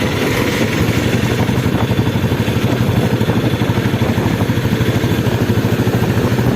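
Royal Enfield Bullet's single-cylinder four-stroke engine running, its exhaust giving a steady, rapid, even thump.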